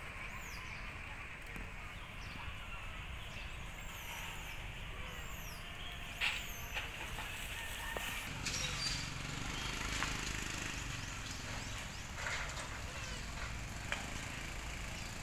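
Outdoor woodland ambience: a steady hiss with low rumble, and a run of short, high chirps that rise and fall during the first half. A sharp click comes about six seconds in.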